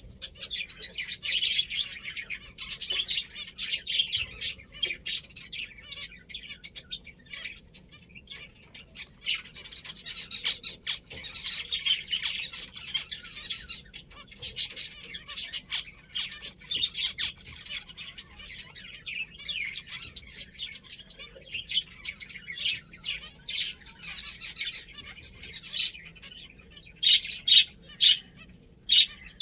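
Pet finches chirping busily, many short high calls overlapping throughout, with a few louder calls near the end.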